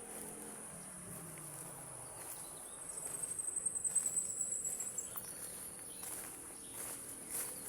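Insects chirring steadily at a high pitch. A second, higher trill joins for a couple of seconds in the middle, alongside a few light taps and rustles.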